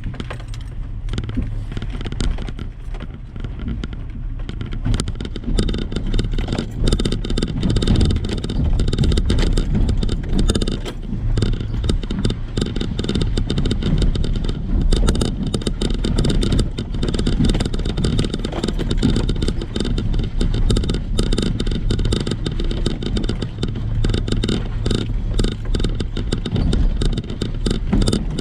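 Off-road truck driving slowly over rough trail: the engine runs steadily under a constant low rumble, with irregular clattering, rattling and jangling from the body and loose items as it bounces.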